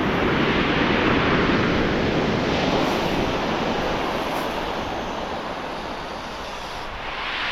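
Small waves washing onto a shingle beach: the rush of surf fades slowly over several seconds, and the next wave swells in near the end.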